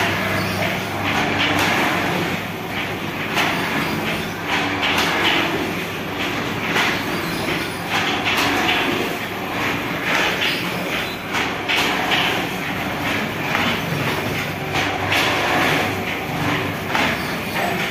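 Automatic paper plate (dona pattal) making machine running: a steady motor hum with repeated sharp clacks as the die press opens and closes, forming foil-laminated paper plates.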